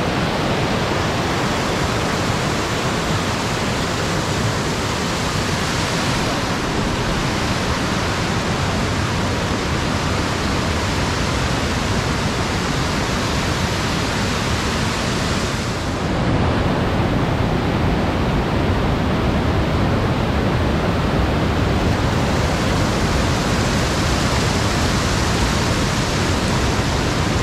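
Waterfall at Plitvice Lakes rushing in a steady, loud roar of falling water, a little louder a little over halfway through.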